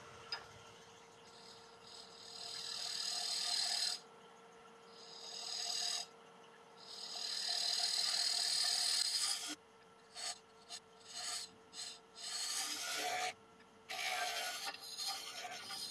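Negative rake scraper cutting inside a spinning damson wood bowl on a lathe: a light finishing cut to take away tool marks. It makes three long hissing scraping passes, then a run of short strokes, over a faint steady hum.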